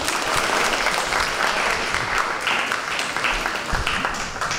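An audience of children and adults applauding: steady clapping that begins to die down near the end.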